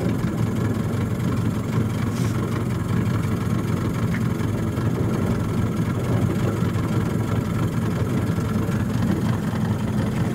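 Motorboat engine running steadily, a constant low drone.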